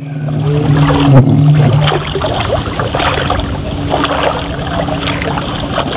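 Bare feet wading through a shallow, muddy ditch, the water sloshing and splashing with each step.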